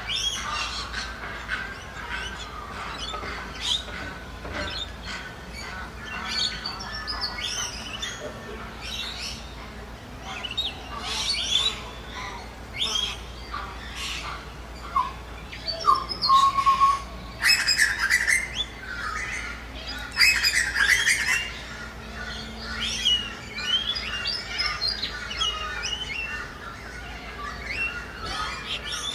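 Ducks and other birds calling over one another in quick chirps and squawks, with a louder run of calls a little past the middle.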